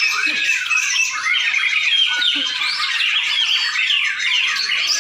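Several white-rumped shamas singing at once: a dense, unbroken tangle of rapid whistles and chattering notes.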